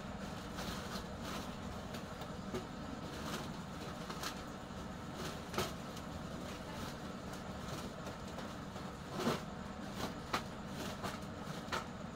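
Scrap computer motherboards clacking against each other as they are handled and slid into a woven plastic sack, with the sack rustling: irregular short knocks, the loudest a little after nine seconds and around ten seconds. A steady low hum runs underneath.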